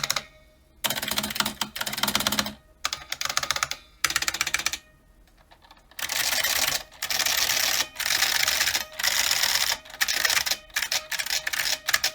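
IBM Model F XT buckling-spring keyboard being typed on fast, in runs of rapid key clatter broken by short pauses and one longer pause midway. The keys are loud and pingy.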